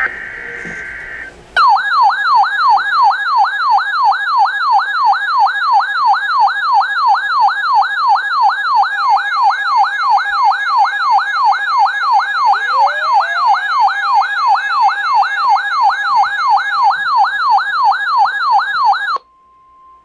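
Emergency alert: a brief burst of two-pitch data tones, then a loud siren-like alarm warbling up and down about two and a half times a second for some seventeen seconds, signalling a severe thunderstorm warning. It cuts off suddenly, leaving a short faint steady tone.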